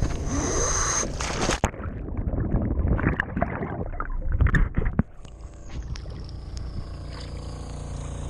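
Diver's splashing entry into the water for about a second and a half. The sound then turns muffled as the microphone goes under, with bubbling and scattered knocks. About five seconds in it settles into a quieter, steady low rumble.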